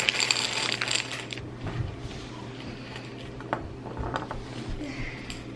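Candy-coated chocolates pouring from a plastic bag into a glass jar, a dense rattle of clicks for about the first second and a half, then a few separate clicks as single candies are dropped in by hand.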